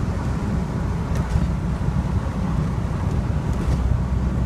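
Reliant Kitten's small 848 cc four-cylinder engine and road noise heard from inside the cabin while driving at a steady speed: a constant low drone with some wind noise.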